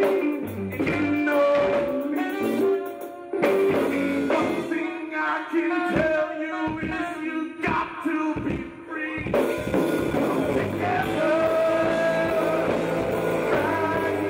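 Live rock band playing, with electric guitars, keyboard and drum kit under a lead singer. The music jumps abruptly twice, about a third of the way in and again past the middle, where the recording is cut to a different point of the performance.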